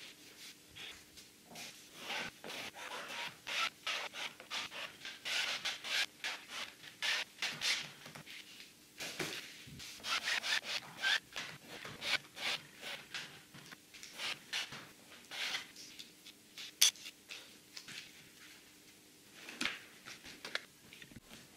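A wide paintbrush scrubbing across a canvas in quick, irregular strokes, giving a dry rasping rub a few times a second. The strokes thin out near the end.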